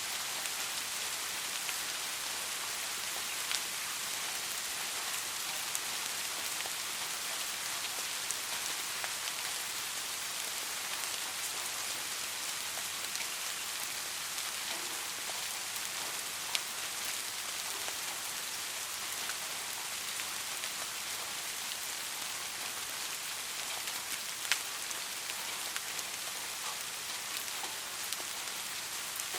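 Steady rain falling, an even hiss with scattered individual drops ticking sharply, a few louder ones standing out.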